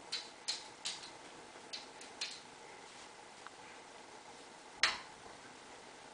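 A puppy's claws tapping and scratching at a mirrored closet door: five short sharp clicks in the first couple of seconds, then one louder knock about five seconds in.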